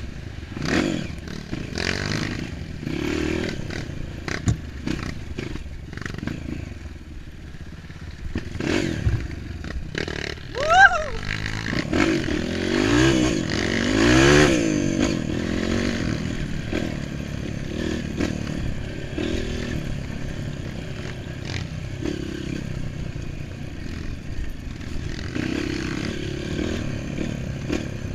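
Off-road dirt bike engine running while riding a rough dirt trail, with two bursts of revving that rise in pitch in the middle. Knocks and rattles come from the bike over the bumps, the sharpest just before the first rev peak.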